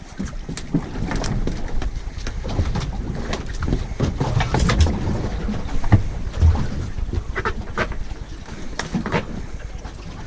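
Irregular knocks and thumps on a fibreglass boat's carpeted deck as a freshly landed flathead flaps about, with a few short squawk-like sounds over the wind.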